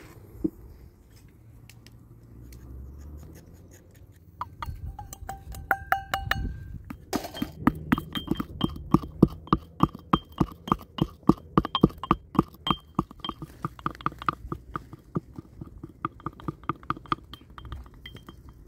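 A wooden pestle pounding in a small glass mortar: a few light clinks, then quick, regular strikes that ring with each blow and run on to the end.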